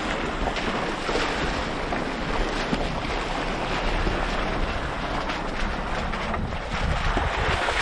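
Wind rushing over the microphone of a camera held out of a moving car's window, over a steady low rumble of the car on a rough road.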